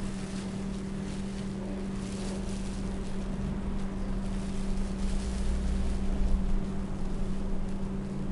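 A steady low hum, one low tone with a fainter one above it. A low rumble swells and fades about halfway through, with faint rustling.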